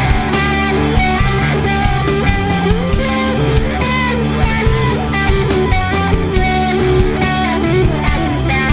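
Rock music led by guitar, with a steady beat.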